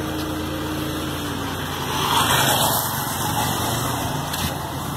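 Motor vehicle engine running with a steady low hum. A louder rush of noise swells about two seconds in and eases off about a second later.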